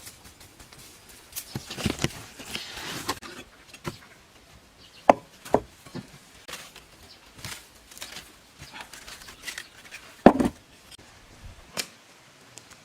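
Irregular knocks and scrapes: a noisy scraping stretch in the first few seconds, then scattered sharp strikes, two close together about five seconds in and the loudest about ten seconds in.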